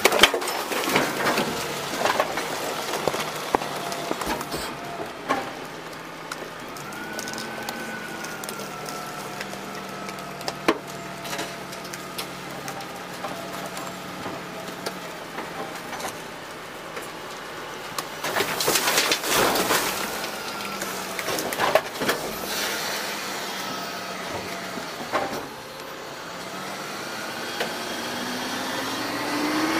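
DaDee Scorpion full-eject automated side loader garbage truck working its hopper: trash from a dumped cart clatters onto the metal hopper floor, then the engine and hydraulics run as the packer panel cycles, with more clanks around twenty seconds in. Near the end the engine revs up, rising in pitch.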